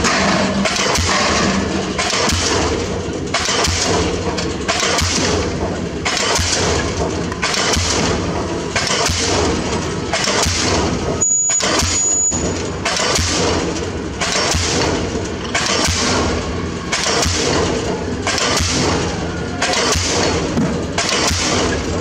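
Diesel pile hammer driving a concrete spun pile, with heavy blows at a steady rate of about one a second. The blows break off for about a second near the middle.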